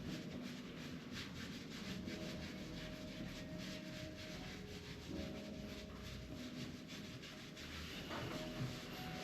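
Hands rubbing over the body during a massage: a continuous, rough rubbing made of many short, irregular strokes.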